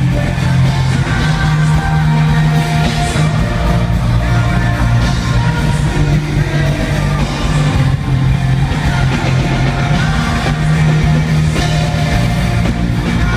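Live rock band playing loudly in an arena, with a strong bass line and voices singing.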